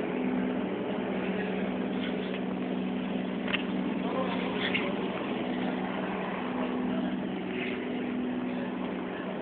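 A steady engine hum of a few low, even tones that barely change.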